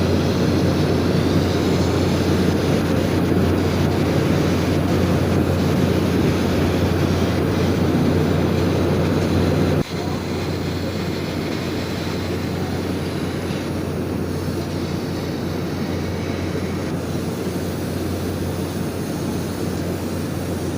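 Steady drone of factory machinery with a strong low electrical hum. It drops abruptly a little in level about halfway through.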